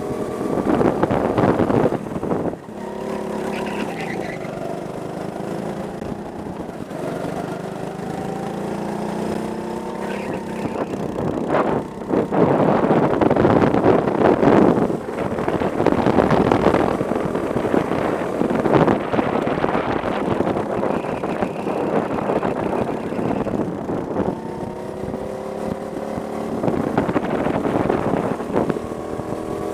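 Go-kart engine heard from the driver's helmet, its pitch repeatedly rising and falling as the kart accelerates out of corners and lifts off into them. On the faster stretches a loud rush of wind on the microphone covers it.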